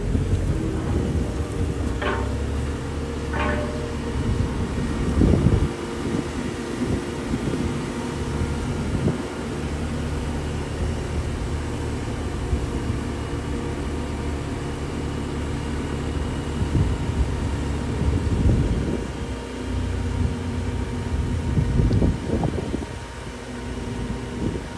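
JCB telehandler's diesel engine running steadily, with a few short knocks over it.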